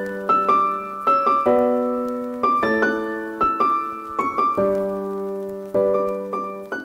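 Piano music: a slow melody of struck notes and chords, each note ringing and fading before the next.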